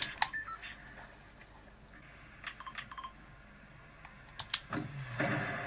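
Battle-royale game sound effects from a smartphone's speakers: scattered clicks and short beeps, then a steady rushing noise with a low hum from about five seconds in.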